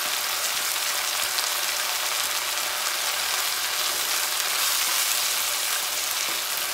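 Vegetables and sauces sizzling in a hot frying pan: an even hiss with faint crackles.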